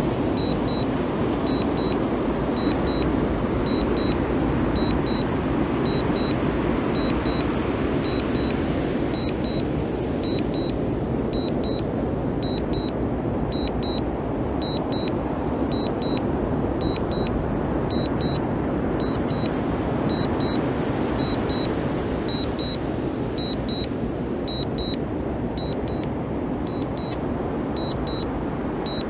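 DJI Mini 2 remote controller giving its return-to-home and landing alert: short high beeps repeating about every two-thirds of a second. Under the beeps runs a steady rushing noise.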